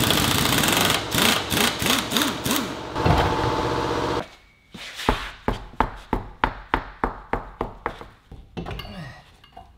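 A power tool works on tight, rusted wheel fasteners: a loud continuous rattle for about four seconds, then, after a short pause, a string of sharp clicks about three a second.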